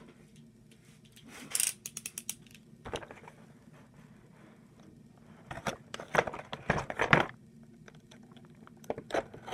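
Cardboard toy box being handled: a few bursts of scraping, tapping and rustling as the box is picked up and turned over.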